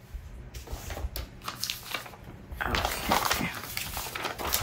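Paper being handled on a desk for junk journaling: rustling and crinkling with short taps, getting busier about two and a half seconds in.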